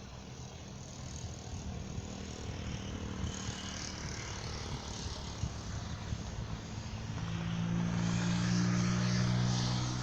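A motor vehicle's engine humming steadily, growing louder from about two-thirds of the way in as it comes close.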